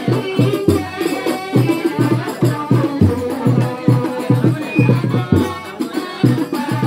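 Loud music with a quick, steady drum beat under a melody.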